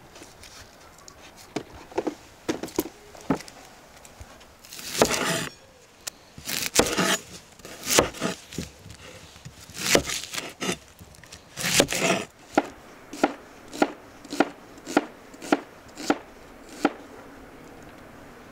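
Chef's knife slicing a red onion on a wooden cutting board. Crunchy strokes through the onion come first, then a steady run of knife strikes on the board, nearly two a second, in the second half.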